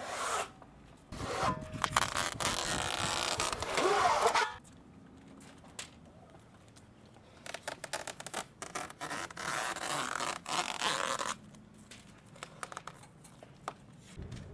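Self-adhesive material being pulled off a roll in long zipping rips, three times, the middle and last each lasting a few seconds.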